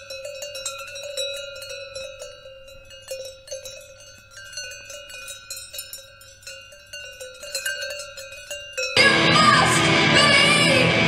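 Soft tinkling of chimes: several steady ringing tones with many light, quick strikes over them. About nine seconds in it cuts abruptly to loud rock music with singing.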